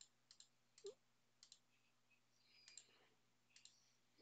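Faint computer mouse clicks, several in quick pairs, over a faint steady low hum.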